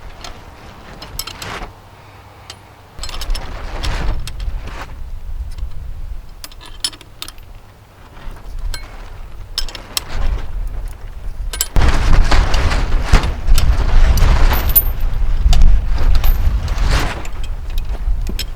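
Metal tools clinking and knocking as the bolts anchoring an anvil down are tightened, with a loud low rumble setting in about twelve seconds in.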